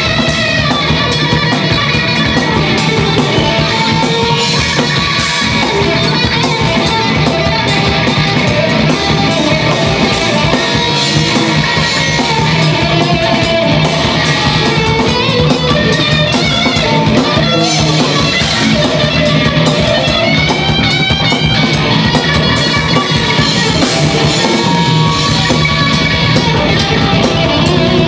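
Loud live rock band playing an instrumental passage with electric guitar, bass and drum kit, and no vocals.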